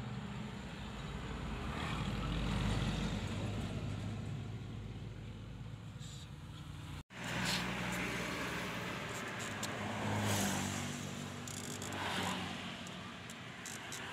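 A motor vehicle engine running, a steady low hum that swells about two to three seconds in. It cuts off sharply about seven seconds in, then returns, with light clicks near the end.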